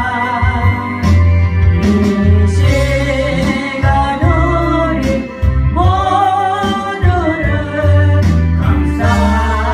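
Gospel song sung with instrumental accompaniment: a singing voice over a steady bass line and beat.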